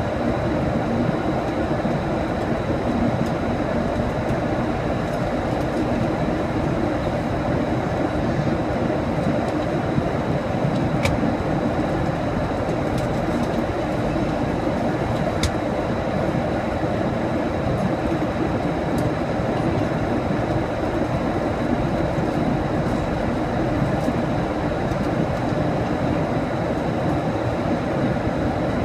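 Steady rush of engine and airflow noise inside an airliner cabin in flight, with a faint steady high whine and two faint ticks partway through.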